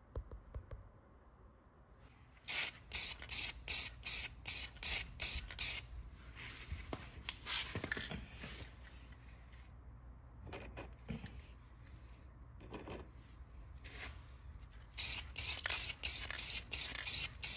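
Aerosol spray paint can hissing in a string of short bursts, spraying light coats of paint onto small die-cast toy truck bodies. There is a quieter stretch with faint clicks and rattles in the middle before the bursts resume near the end.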